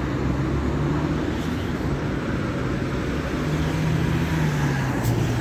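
Automatic car wash heard from inside the car: a large rotating brush sweeping the windshield and body, with rushing water spray and a steady low machine hum underneath. A few faint sharp ticks come near the end.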